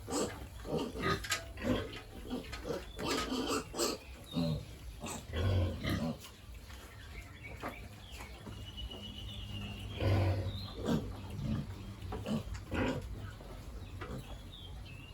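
Pigs grunting in short, irregular bursts, a few louder grunts standing out partway through.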